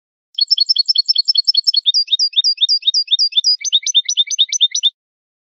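European goldfinch singing a Malagueño-style song, the kind of recorded song used to tutor young goldfinches. The song is about four and a half seconds of rapid, high repeated notes, about six a second, and it switches to a new repeated note twice before stopping.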